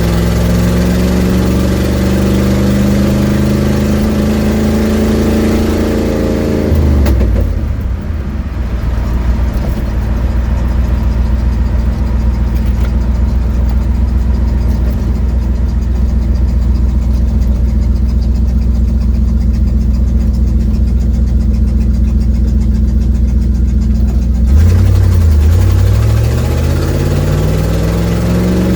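1972 Ford Mustang engine with a leaking exhaust, heard from inside the cabin: it pulls up through the revs, drops back about seven seconds in and runs steady and low, then climbs again as the car accelerates near the end.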